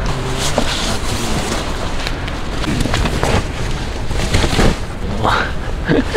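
Rustling and handling noise as tent fabric and bedding are pushed and moved about, over a steady low rumble, with faint voices now and then.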